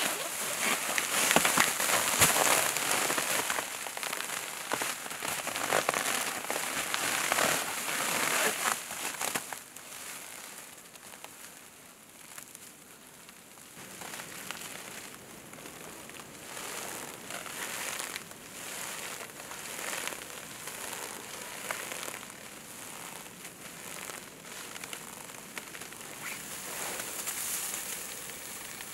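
Clear plastic wrap (stretch film) rustling and crinkling as a person handles and moves against it, a dense crackle that is louder for the first nine or so seconds, then softer with scattered crackles.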